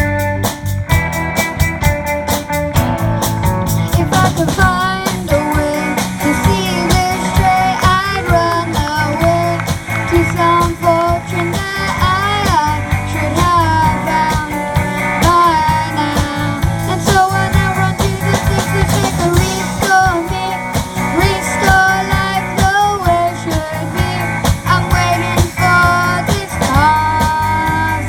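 A band playing a rock song, with guitar, bass and drums and a lead melody line that slides and bends in pitch.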